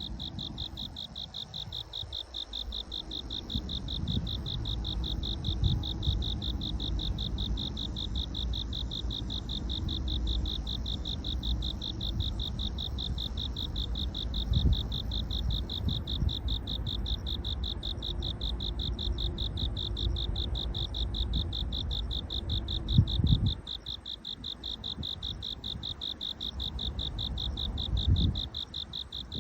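Crickets chirping in a continuous, rapid, high-pitched pulsing trill. A low rumble runs underneath, with a couple of louder thumps near the end.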